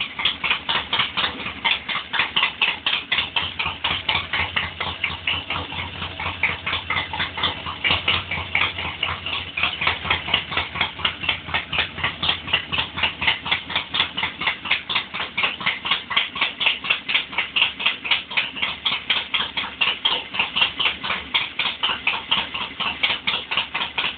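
1966 Triumph 650 parallel-twin engine idling with a steady, loping beat of about four pulses a second.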